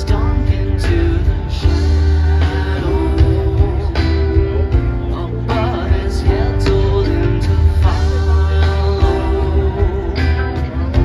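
Rock band playing live: electric guitars, bass, keyboards and drums, with regular drum hits over sustained bass and chords.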